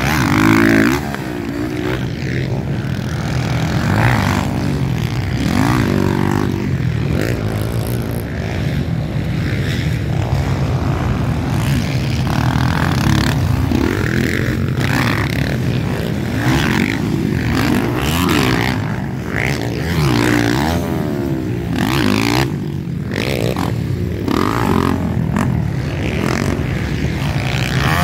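Motocross dirt bikes racing over the jumps of a dirt track, their engines revving up and dropping back again and again as the riders work the throttle, with bikes overlapping as one passes and the next comes on.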